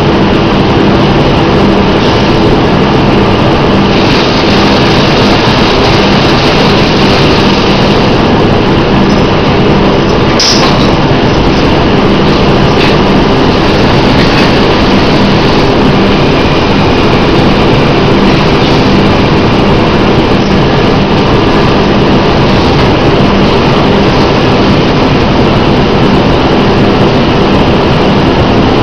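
Loud, steady mechanical running noise of a semi-automatic animal feed bagging machine and its feed-plant machinery, with a constant low hum. A single short sharp clack with a brief hiss comes about a third of the way in.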